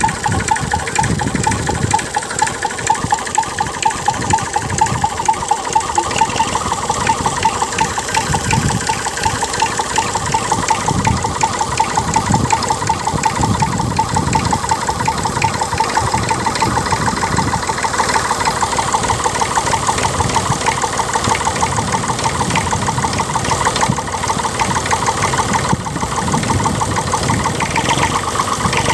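Tractor engine running steadily at idle, with a fast, even beat.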